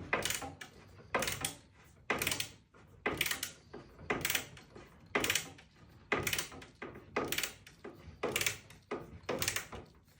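Screws being turned into wooden furniture by hand with a hand tool: short scraping strokes, roughly two a second, in an even run.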